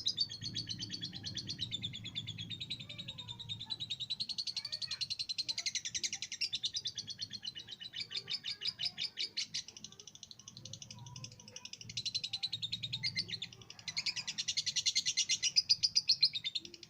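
Lovebird singing a long, rapid chattering trill of fast repeated high notes, in several extended runs with brief lulls between them.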